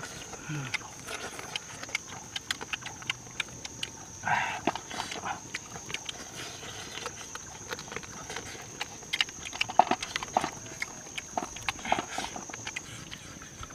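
Wet chewing and lip-smacking of people eating cooked snake meat with their fingers, a stream of short sharp smacks and clicks. A steady high-pitched drone of night insects runs underneath.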